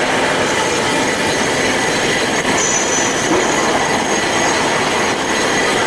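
Industrial band saw running through a cut: a steady, loud grinding noise with a thin high whine that fades in and out.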